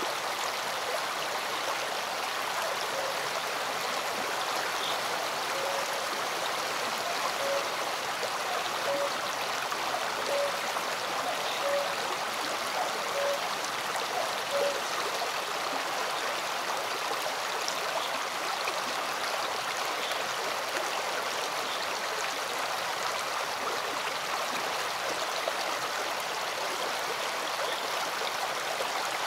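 A rocky stream flowing in small cascades: a steady rush of water. In the first half, a short low note repeats about every second and a half.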